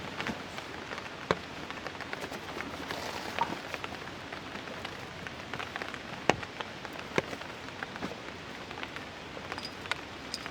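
Steady rain, with individual heavier drops hitting a surface as sharp separate taps.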